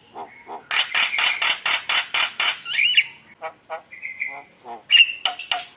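Javan myna singing. A rapid run of harsh chattering notes, about five a second, is followed by a rising whistle, scattered clicks and a short steady whistle in the second half.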